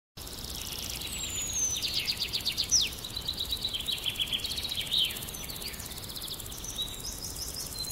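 Several wild birds calling and chirping: quick trills of repeated high notes and a few sharp downward whistles, over a faint low background rumble.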